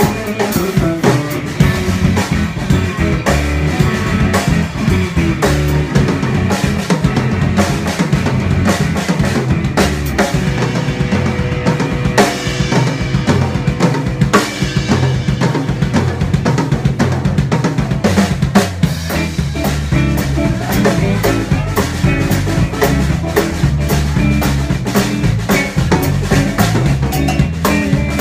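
A live band playing an instrumental passage: a drum kit pounding out a steady beat under electric guitars and a moving bass line.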